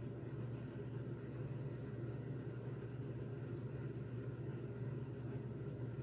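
Steady low hum with a faint even hiss: room tone, with nothing starting or stopping.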